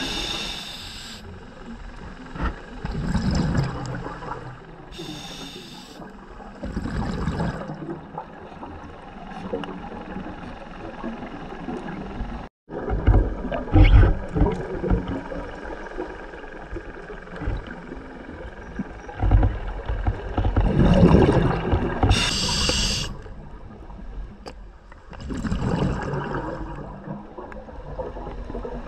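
A scuba diver breathing through a regulator underwater: a short hiss on each inhale and a bubbling surge of exhaled air every few seconds.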